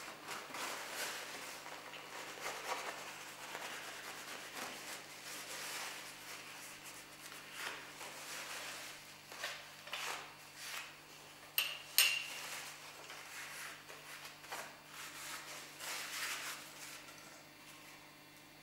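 A cloth rubbing over a forme of metal type and metal furniture, with light metallic clinks and taps at uneven intervals. Two sharp clicks close together about two-thirds of the way in.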